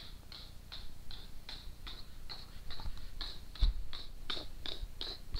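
Steady clock-like ticking, about three ticks a second, with a soft low thump about three and a half seconds in.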